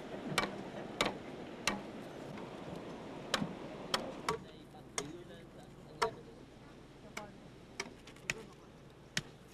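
Machete blade chopping and notching green bamboo: sharp, irregular knocks about one a second, quieter and sparser in the second half.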